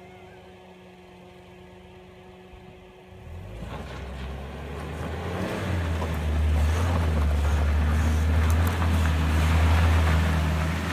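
Suzuki Jimny Sierra's small four-cylinder engine running under load as the car climbs a rocky dirt track. It is faint at first, then about three seconds in it comes in loud and keeps growing as the car draws near, with tyres crunching on loose gravel.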